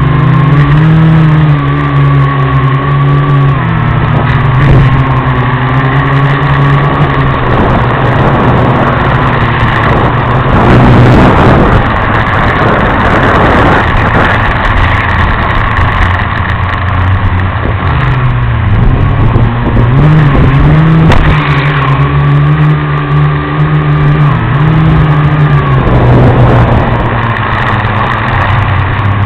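FPV quadcopter's motors and propellers buzzing, the pitch rising and falling as the throttle changes, with a stretch of rushing noise about halfway through.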